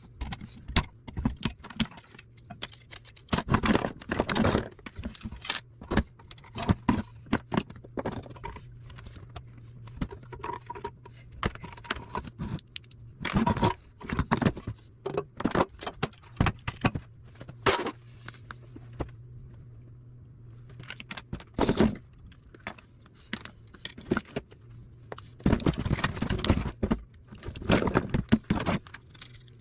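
Small metal parts and hand tools clinking, rattling and knocking in irregular bursts while food service scales are taken apart for scrap, over a steady low hum.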